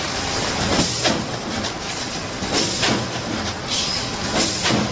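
Vertical form-fill-seal packaging machine running: a steady mechanical clatter, with a pair of sharp clacks and a hiss about every two seconds as the machine cycles.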